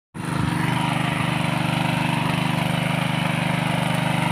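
Honda GX200 single-cylinder four-stroke engine on a power weeder running steadily with an even, fast pulse while its rotary tines till the soil.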